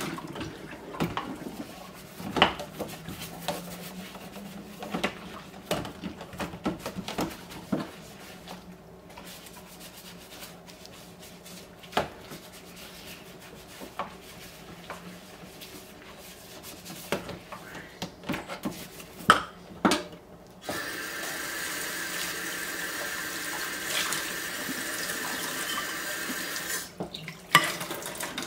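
Dishes being hand-washed in a stainless steel kitchen sink: scattered clinks and knocks of crockery against the sink and a plastic tub. About two-thirds of the way through, the kitchen tap runs steadily for about six seconds while a bowl is rinsed, then shuts off suddenly near the end, followed by one more clink.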